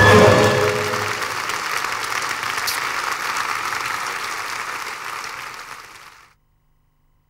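Audience applauding, with the last notes of an orchestral finale in the first second; the applause fades down and cuts off abruptly about six seconds in.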